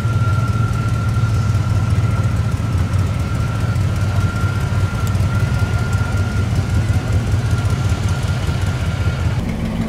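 C3 Chevrolet Corvette Stingray's V8 running at a low, steady idle-speed rumble as the car rolls slowly by. A thin, steady whine runs alongside and stops near the end.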